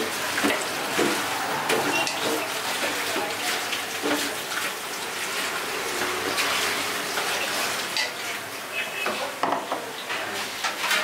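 Clinks and scrapes of steel serving tongs and bowls against large steel cooking pots as food is dished out, over a steady hiss of kitchen noise and faint voices.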